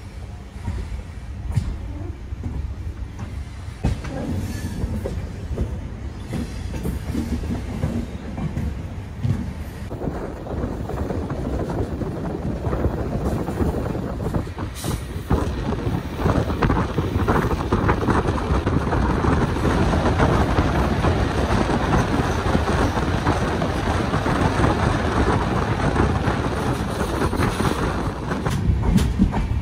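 Passenger express train's coaches rolling over the rails as it pulls out and gathers speed, a steady rumble with clickety-clack from the wheels over the rail joints, heard from an open coach door. It grows louder about ten seconds in.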